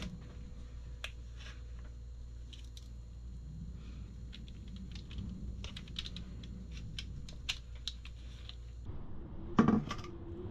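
Wooden spoon scraping and tapping thick banana bread batter out of a mixing bowl into a paper-lined slow cooker: a run of light clicks and scrapes, with one louder knock near the end.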